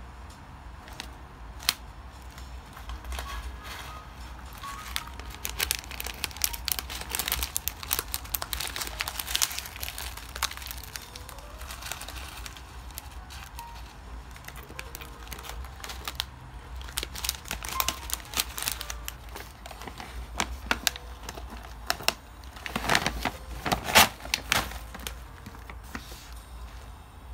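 Plastic packaging crinkling and rustling as items are handled, with irregular light clicks and knocks. The handling is busiest in two stretches, with the loudest knocks near the end.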